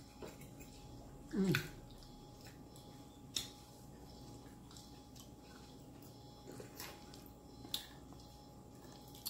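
A person eating close to the microphone: quiet chewing with a few sharp clicks, and a short falling hum through closed lips about a second and a half in.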